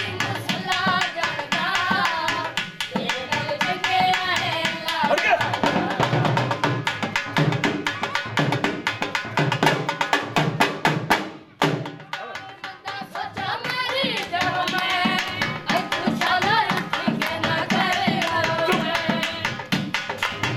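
Jhumar dance music: dhol drumming in a fast, steady beat with a wavering melody line over it. The music breaks off for a moment about halfway through, then picks up again.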